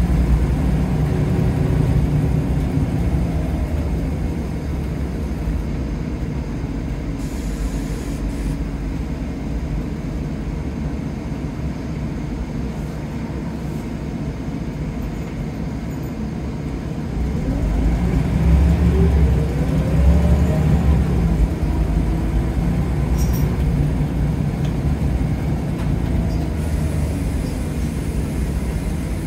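Scania L94UB Wright Solar bus on the move, its diesel engine droning steadily. The engine eases off through the middle, then works harder with its note rising a little over halfway through as the bus pulls away or accelerates.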